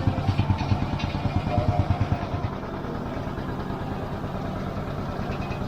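Engine of an orchard tractor or harvesting machine running steadily at low revs, a rapid low throb.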